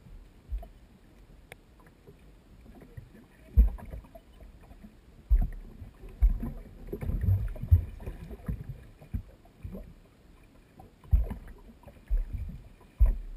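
Small waves slapping irregularly against the hull of a Sea-Doo RXP-X personal watercraft lying still on choppy water, heard as low thumps every second or so.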